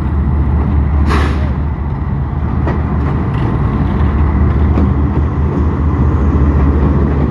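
GE U20C (GEU20) diesel-electric locomotive passing close as it pulls away with its train, the diesel engine running with a steady low rumble. A short hiss about a second in.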